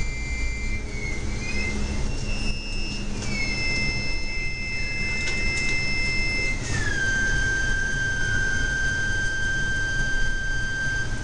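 Improvised electronic loop music on small Korg analog synthesizers (Monotribe, Monotron, Volca Keys): a high held synth tone that glides up and down in pitch, stepping down to a lower held note about two-thirds of the way through, over a steady low rumbling drone.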